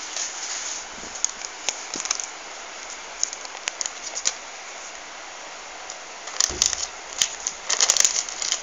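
Paper rustling and crinkling as it is handled, with scattered small clicks over a steady hiss. It grows busier in the last two seconds, with a dull bump about six and a half seconds in.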